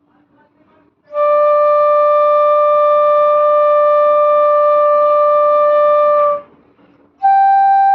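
Bansuri (bamboo flute) playing a long, steady held note, Pa, for about five seconds, then, after a short pause, a second, higher held note begins near the end. It demonstrates the clear, sweet tone that comes with all finger holes fully covered.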